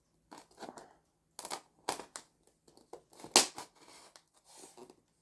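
Cardboard and foam packaging being cut and worked around its corners: a run of irregular sharp scrapes and clicks, the loudest about three and a half seconds in.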